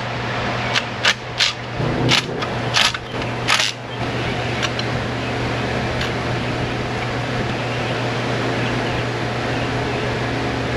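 A steady mechanical hum with a handful of sharp clicks and knocks in the first four seconds, like hand tools on metal parts.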